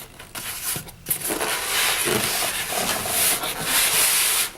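Styrofoam and cardboard packaging being handled while a sewing machine is unpacked from its box: a dense scraping and rubbing noise that starts about a second in and carries on until just before the end.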